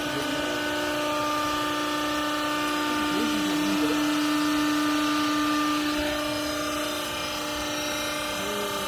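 Hydraulic clothes baler's pump motor running with a steady whine, easing off slightly about seven seconds in.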